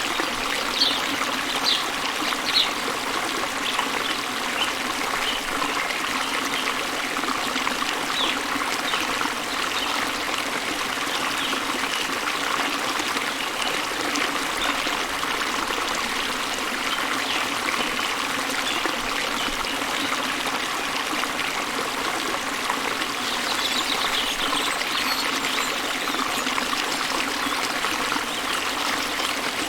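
Steady running water of a small stream, with short high bird chirps now and then: a few near the start and a quick trill of chirps near the end.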